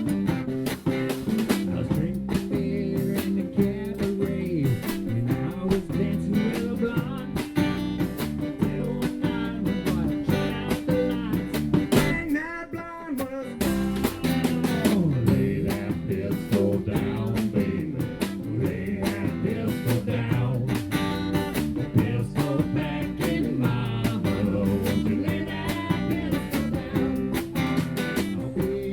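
Live band playing an upbeat country song led by guitars.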